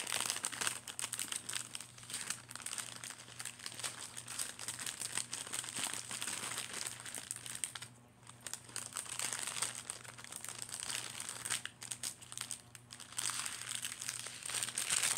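Plastic packaging bag crinkling as loose wind chime parts are pushed back into it, going on steadily with a short lull about halfway through.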